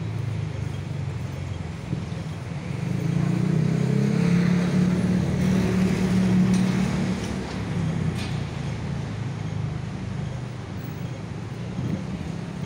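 Street traffic: a motor vehicle's engine rumbling close by, growing louder for a few seconds in the middle as it passes, then easing back to a steady traffic rumble.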